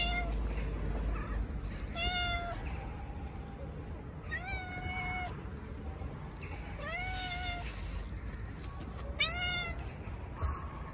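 A stray cat meowing, five meows about two seconds apart, each rising in pitch and then holding, the middle ones drawn out longer.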